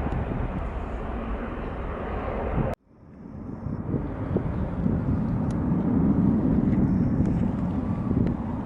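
Jet airliner engine noise, a steady low rumble. It cuts out suddenly about three seconds in, then swells back up and peaks a few seconds later.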